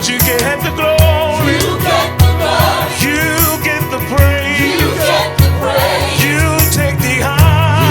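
Live gospel worship music: a band with steady bass and drums plays under singers holding wavering, vibrato-laden vocal lines.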